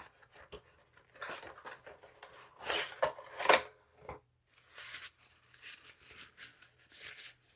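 A mailed package being opened by hand: irregular crackling, rustling and tearing of the packaging, loudest about three seconds in.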